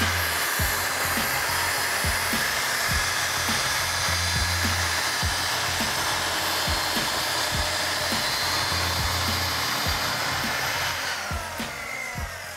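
Festool plunge-cut track saw running along its guide rail as it cuts through a plywood sheet, a steady whine for about eleven seconds before the blade winds down near the end. Background music with a steady beat plays underneath.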